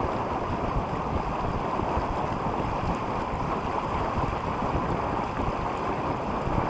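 Steady wind buffeting the microphone, mixed with water rushing along the hull of a small sailing yacht under way.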